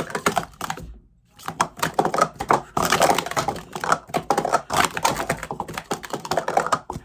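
Speed Stacks sport-stacking plastic cups clattering rapidly as they are stacked up and down against each other in a timed run. A short lull comes about a second in, then the fast clicking and knocking goes on to the end.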